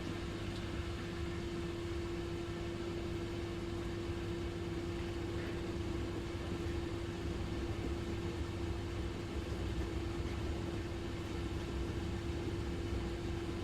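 Dishwasher running: a steady motor hum with one held tone over a low rumble and a light hiss.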